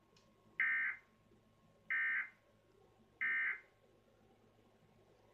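Emergency Alert System end-of-message (EOM) signal: three short bursts of SAME digital data tones, about 1.3 seconds apart, marking the end of the alert message.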